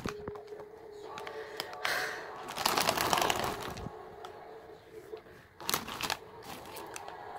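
Foil-lined plastic snack bag crinkling as it is pulled open, with louder rustles about two seconds in and again near six seconds as a hand reaches in among the chips.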